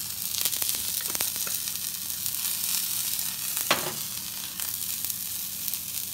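Rattlesnake meat frying in hot olive oil in a nonstick pan: a steady sizzle with small crackles. One light knock a little over halfway through.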